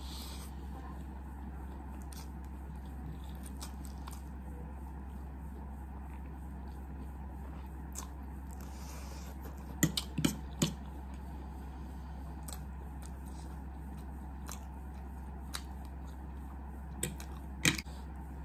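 Quiet eating sounds over a steady low hum, with a few sharp clicks of a metal fork against a ceramic plate: a cluster about ten seconds in and two more near the end.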